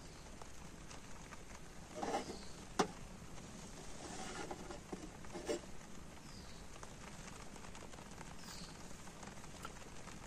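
Faint patter of rain on the tent over a steady hiss, with a few soft knocks and one sharp click between about two and five and a half seconds in as a steel mug on a lit butane camping stove is handled.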